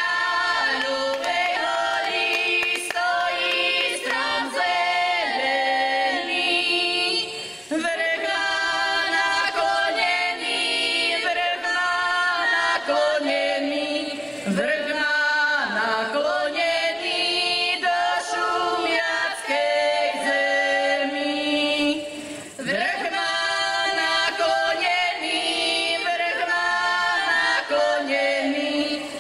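A folk vocal group singing together, several voices at once with women's voices to the fore, the song phrased in long lines with short breaks between them.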